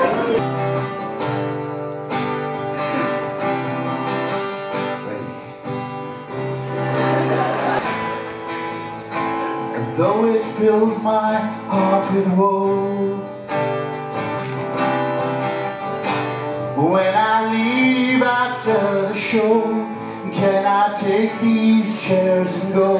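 Music: strummed and plucked acoustic guitar, with a singing voice coming in about ten seconds in.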